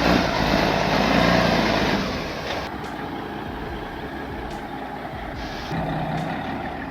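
A chainsaw running loud for about two seconds, then dropping away to the quieter, steady running of a heavy logging truck's diesel engine.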